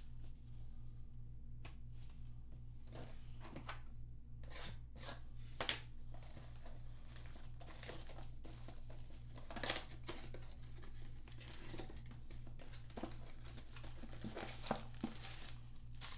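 Trading-card pack wrappers being torn open and crinkled by hand, a run of irregular tearing and crinkling sounds, over a steady low hum.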